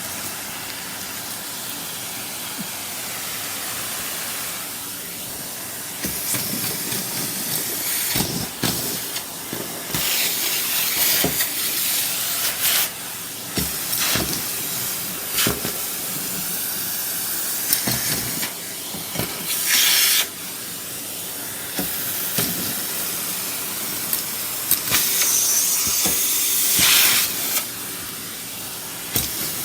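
Henry vacuum cleaner running, sucking up bits of snack food off the floor: a steady hiss from about a quarter of the way in, broken by many brief rattles and surges as pieces are drawn up the hose.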